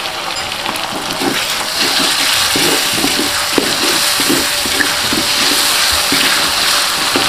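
Chilli spice paste sizzling and bubbling in an aluminium wok just after a little water has been added, with a wooden spatula scraping through it in short strokes. The hiss grows louder about two seconds in.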